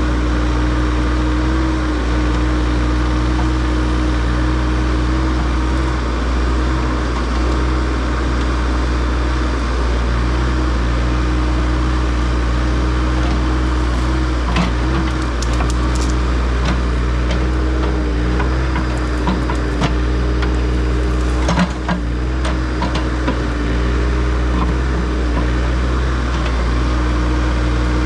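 Diesel engine of earthmoving equipment running steadily while dirt is spread, with a few short clicks and knocks about halfway through and a sharper knock about three quarters of the way in.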